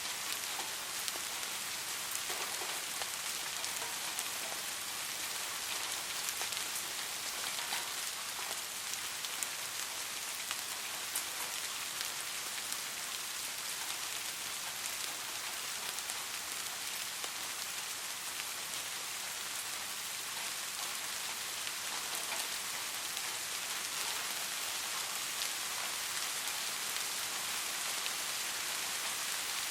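Steady rain falling, a dense even hiss scattered with the ticks of individual drops hitting a surface.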